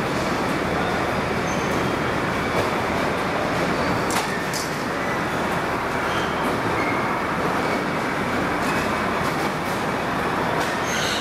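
Steady din of a large warehouse floor where electric tow tractors pull trains of metal flower trolleys. A sharp click comes about four seconds in and another near the end, with a few faint short squeaks.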